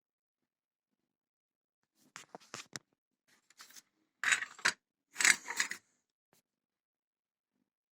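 Several short bursts of clicking and clattering, like small metal tools or parts being handled, with silence between them; the loudest two come about four and five seconds in.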